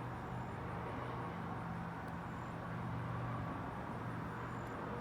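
Steady low hum of an outdoor air conditioning unit running, over a constant background rush.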